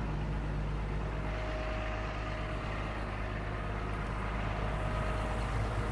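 Komatsu PC230-8 excavator's diesel engine running steadily, a constant low hum with no change in speed.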